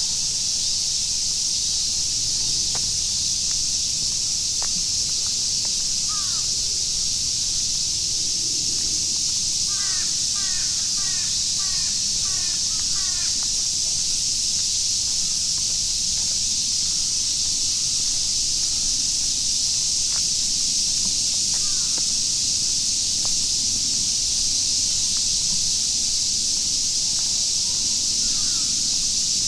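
Steady hiss of falling rain, with a bird calling: a quick run of short notes about a third of the way in and a few single calls elsewhere.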